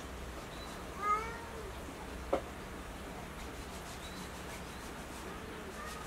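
A cat gives one short meow about a second in, and a sharp click follows a moment later.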